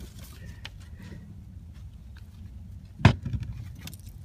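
Knocks and small clicks from a knife and a freshly caught plaice being handled on a plastic cutting board, with one sharp knock about three seconds in, over a steady low rumble.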